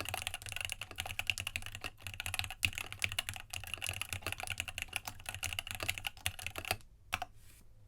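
Fast, continuous typing on a Rama Works U80-A mechanical keyboard with Gateron Tealios linear switches, a brass plate, an internal dampener and PBT Dolch keycaps. It stops near the end, leaving a couple of last keystrokes.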